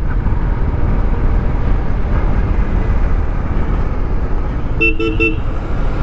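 Steady wind and engine rumble of a Royal Enfield Classic 500 single-cylinder motorcycle being ridden on the highway. About five seconds in, a vehicle horn gives three short toots in quick succession.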